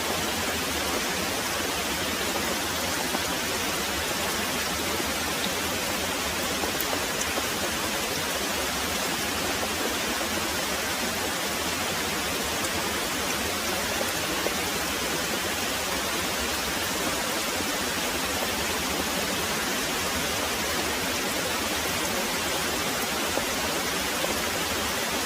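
Very heavy rain pouring steadily, an even, unbroken hiss with no thunder heard.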